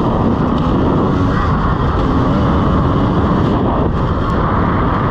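2017 KTM EXC 300's single-cylinder two-stroke engine running steadily as the bike is ridden along a dirt trail, with wind noise on the microphone.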